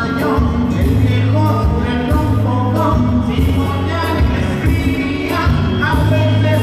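Live band music with a lead singer: amplified electric guitars, bass, drums and congas under a sung vocal line.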